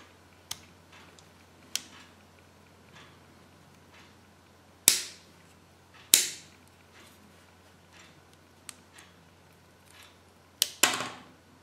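Small plastic Kinder Surprise toy launcher with its spring-loaded flap snapping shut sharply as it is cocked and released. There are a few light clicks, two loud snaps about a second apart in the middle, and two more in quick succession near the end.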